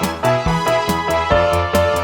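Upbeat electronic background music with a steady beat and bright synthesizer melody.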